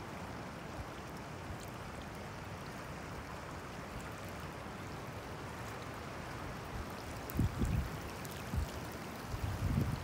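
Steady rushing noise of stormy weather, with low, gusty buffeting on the microphone about seven and a half seconds in and again just before the end.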